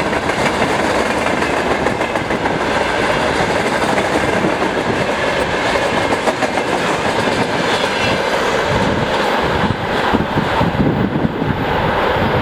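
Freight train wagons rolling past close by: a steady wheel rumble with clickety-clack over the rail joints, the last cars being tank cars. About ten seconds in the sound dulls as the tail end goes by and the train moves away.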